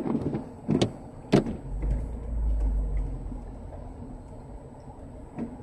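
Car windshield wiper sweeping across wet glass, with a few sharp knocks and squeaks in the first second and a half. A low rumble follows about two seconds in, and another short knock comes near the end.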